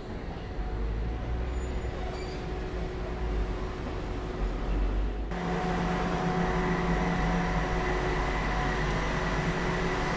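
Bombardier Primove battery-electric low-floor tram rolling slowly in with a low rumble. About halfway through the sound changes abruptly to a steady hum with several held tones from the tram standing at the platform.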